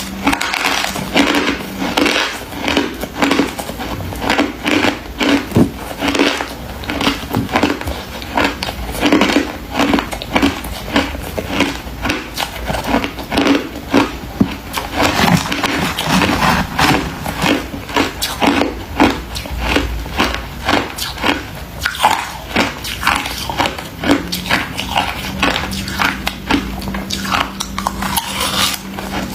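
Close-miked biting and chewing of crunchy white freezer frost ice: a fast, continuous run of sharp crunches, with a steady low hum underneath.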